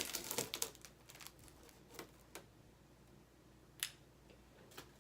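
A few scattered light clicks and taps, the loudest about four seconds in: small handling noises of wafer packs being moved about on a table.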